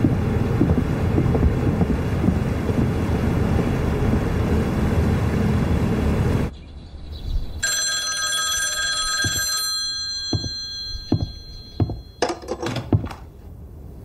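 Steady wind noise on a ship's deck, cut off suddenly about six and a half seconds in. A second later an old-style desk telephone bell rings for about two seconds, followed by a few clicks and knocks as the handset is lifted.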